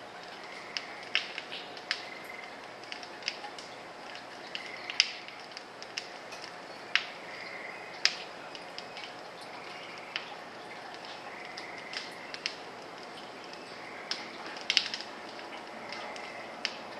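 Sharp, irregular clicks and cracks, roughly one a second, some much louder than others, which the uploader takes for a neighbour's pellet gun and its pellets striking the house. Behind them a short buzzy note comes back every couple of seconds over a faint steady hum.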